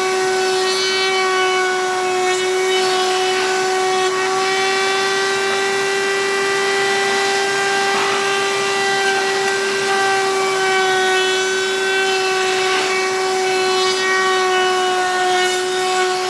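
Electric wood-cutting machine running with a loud, steady high whine from its motor.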